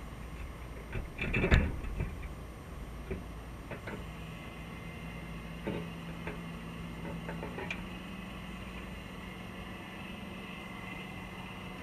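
Underwater sound heard from inside a crab trap: scattered clicks and knocks in the first few seconds, the loudest about a second and a half in, then a steady low hum of a distant boat motor carried through the water, with a faint hiss above it, rising slightly in pitch near eight seconds.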